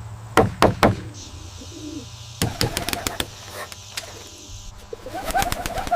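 Pigeons in a loft: clusters of sharp knocks and clatter over a steady low hum, with short pigeon coos near the end.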